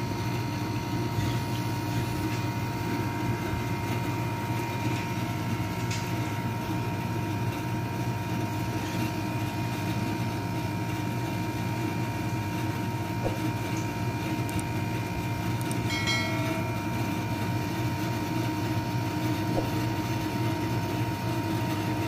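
Split-type air conditioner's outdoor unit running with a steady, even hum from its compressor and condenser fan, while it runs short of refrigerant and is being recharged. A brief high-pitched squeak about two-thirds of the way through.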